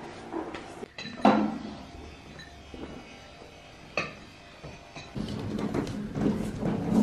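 A sharp knock that rings on briefly about a second in and a lighter click near four seconds. Then a wheelbarrow loaded with firewood rolls over a concrete path, its wheel and load rattling unevenly.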